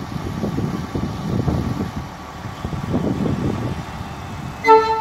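Coupled diesel light rail trains moving slowly, with a low, uneven engine and running-gear rumble. Near the end comes one short, loud horn toot.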